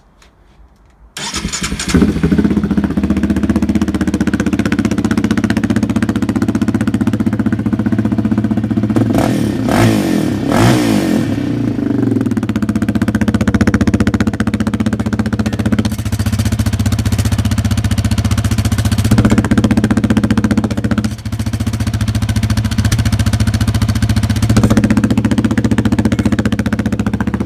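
2020 Yamaha Raptor 700's single-cylinder four-stroke engine starting about a second in and then idling loud through the open muffler with its spark arrestor removed. The throttle is blipped a few times around nine to eleven seconds in, the pitch rising and falling.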